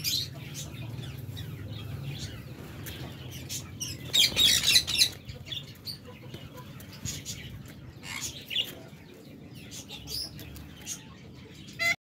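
An albino parakeet calling in a few short, scratchy bursts, the loudest about four seconds in, over a low steady hum.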